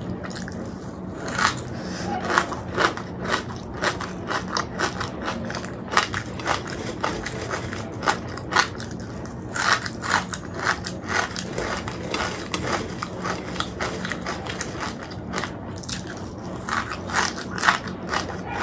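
Close-up chewing and crunching of crispy shoestring potato fries (jhuri alu bhaja), a run of irregular sharp crackles as the bites are chewed.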